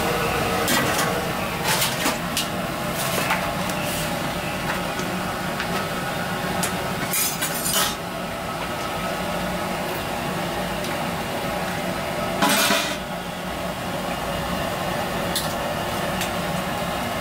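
Stainless-steel kitchenware clinking: a ladle knocking against steel pots and plates in a few separate sharp clinks over a steady background noise, with two short scraping bursts in the middle.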